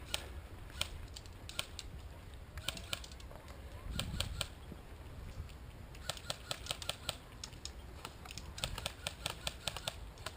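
Airsoft guns firing: sharp snapping clicks, a few single shots at first, then two rapid bursts about six and nine seconds in.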